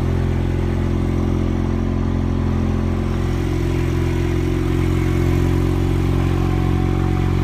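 A small engine running steadily at one constant speed, with a low, even hum.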